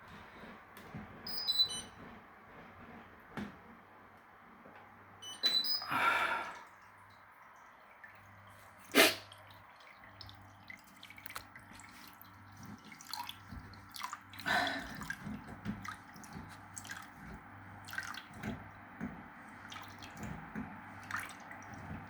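Water dripping and trickling in a Hotpoint washing machine, over a low hum that keeps cutting in and out. Scattered small clicks, with a sharp knock about nine seconds in.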